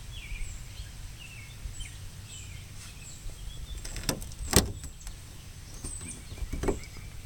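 Outdoor ambience of small birds chirping over a steady low rumble, broken by a few sharp knocks, the loudest about four and a half seconds in.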